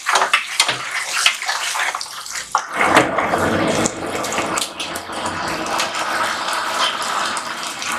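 A metal ladle scraping and knocking in an iron kadhai, then about three seconds in a loud, steady sizzling and bubbling of masala gravy frying in hot oil takes over.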